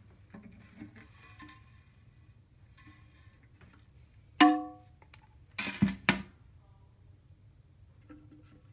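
Toilet tank parts being handled: one sharp ringing clink about halfway through, then a short louder rattle, with soft plastic clicks and rubbing around them as the rubber flapper is unhooked from the flush valve.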